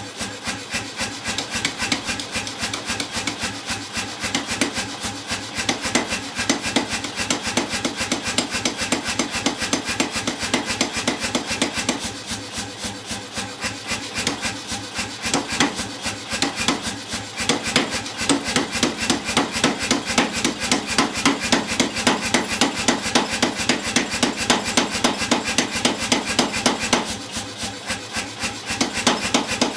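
Rapid, even hammer blows, about five a second, on a handled top tool pressing into a red-hot steel bar to forge its tenon shoulders. There are two short softer lulls, one about twelve seconds in and one near the end.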